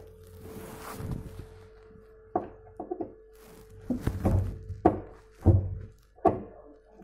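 Screwdriver knocking and clacking against a kitchen cabinet door's concealed hinge and door panel while the hinge is worked on: a string of sharp thunks, about eight of them from about two and a half seconds in.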